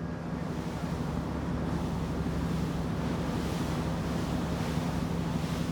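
Steady low drone of a ship's engine at slow speed, under a wash of wind and water noise that grows a little louder about a second in.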